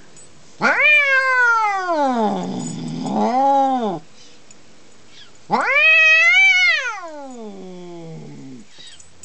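Adult male orange tabby cat yowling twice. Each call is a long, drawn-out moan of about three seconds that sinks in pitch. It is the angry, territorial yowl of a resident cat upset by a new kitten in the house.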